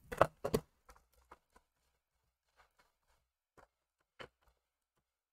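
Two sharp plastic clicks in the first half second, from a stamp ink pad's plastic case being snapped shut and handled. A few faint taps follow, with one more small click a little past four seconds, as craft supplies are set down on the desk.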